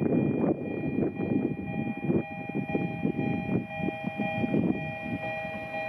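Fukui Railway L10-class railcar rolling into the depot: low rumbling with irregular clanks from the wheels on the track, over a steady high whine.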